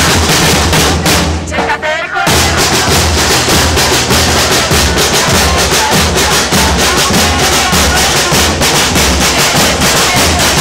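Several marching snare drums beaten with sticks together in a fast, loud, continuous rhythm, with a brief break about two seconds in.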